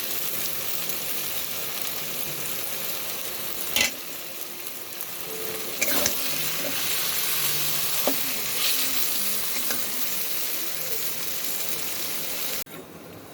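Taro-leaf greens with hilsa fish head sizzling steadily in oil in a pan, cooked down until the oil has separated out. A few sharp knocks of a spoon against the pan come at intervals, and the sizzle cuts off near the end.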